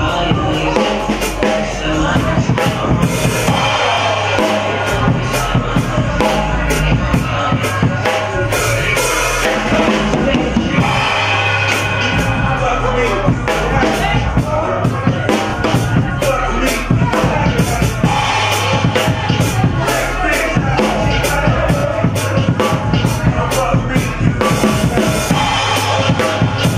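Acoustic drum kit played with sticks: a busy, steady beat of snare, bass drum and cymbals, with other pitched music underneath.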